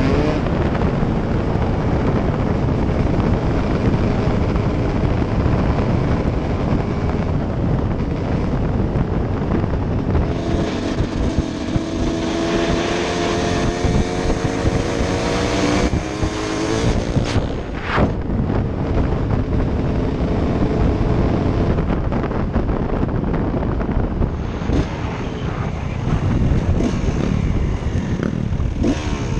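Dirt bike engine running under way, buffeted by wind rush on the helmet-mounted microphone; the engine note climbs and falls through the middle stretch, with a sharp click partway through.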